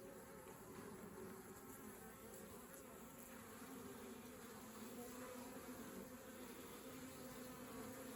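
Honeybee colony buzzing around an opened hive, a faint, steady hum.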